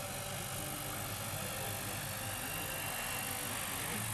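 RC scale model helicopter in Airwolf form flying, a steady whirr of its rotors with a faint high whine running through it.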